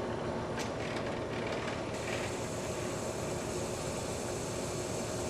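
Drill press running at 1,000 RPM with a brad point drill bit boring into 1/2-inch polycarbonate under constant weighted feed: a steady mechanical hum and hiss, the hiss turning a little brighter about two seconds in.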